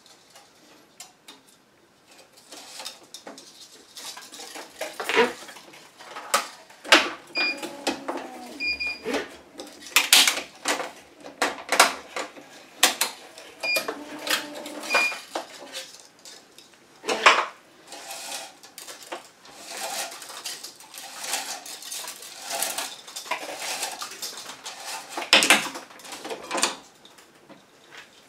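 Racquet being strung on an electronic stringing machine: irregular clicks and clatter from the string clamps and the racquet mount as the string is pulled and clamped. Short high electronic beeps come from the tensioner head a few times near the middle, with a faint motor hum as it pulls.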